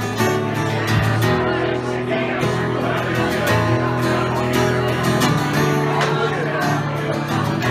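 A live band playing an instrumental introduction: strummed acoustic guitar over a steady bass line, with held notes from other instruments.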